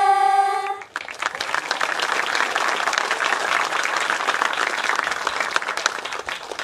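Theater audience applauding, a dense crackle of many hands clapping. For the first second, a group of women's voices holds the last drawn-out syllable in unison, then cuts off as the clapping takes over.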